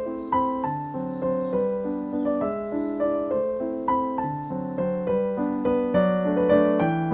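Background piano music: gentle notes played at a steady pace, each fading after it is struck.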